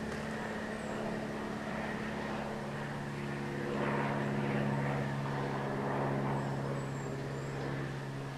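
A steady, low droning hum of a distant engine, swelling a little around the middle and easing off near the end.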